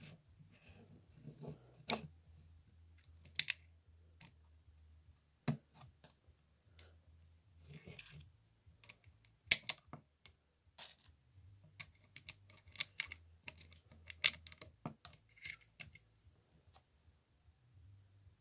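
Plastic LEGO bricks clicking and snapping together as pieces are handled and pressed onto a model car: irregular sharp clicks, with a louder snap about three and a half seconds in and another near ten seconds, and a quick run of clicks a little later.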